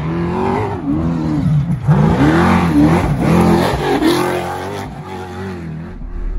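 Off-road desert race truck's engine revving hard as it passes close by, its pitch climbing and dropping several times and loudest in the middle.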